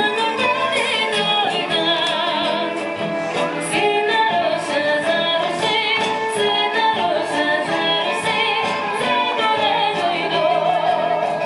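Music with a woman singing over instrumental accompaniment, the voice wavering with vibrato.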